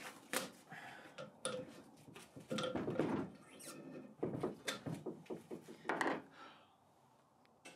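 A new polyurethane bandsaw tyre being levered and stretched onto a 20-inch cast iron wheel with a hand tool: irregular scrapes, rubbing and clicks of the tool and rubber against the rim.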